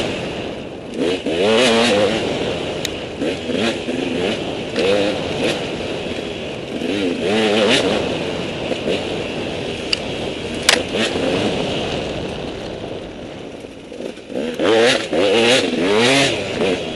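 KTM 200 EXC two-stroke single-cylinder enduro engine revving up and down as the throttle is worked along a tight trail. It eases off about three-quarters of the way through, then revs hard again. There is a single sharp knock about eleven seconds in.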